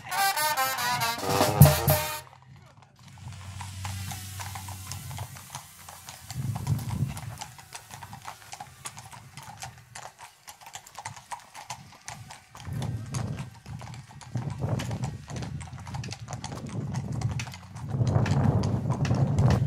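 Horses' hooves clip-clopping on a paved road at a walking pace, a stream of sharp clops, with voices in the background. Music plays for about the first two seconds and comes back near the end.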